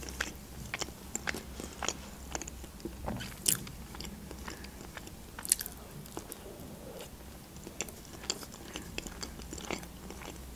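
A person chewing food close to a microphone: mouth sounds made up of many short, sharp clicks and smacks, coming irregularly.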